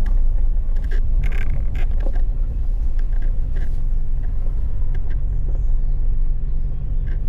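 Four-wheel-drive vehicle driving slowly over a rough dirt trail, heard from inside the cabin: a steady low engine and road rumble, with scattered knocks and rattles in the first few seconds.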